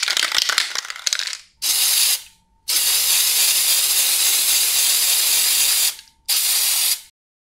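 Aerosol spray-paint can hissing in three bursts: a short one about one and a half seconds in, a long one of about three seconds, then another short one. Each burst starts and stops abruptly.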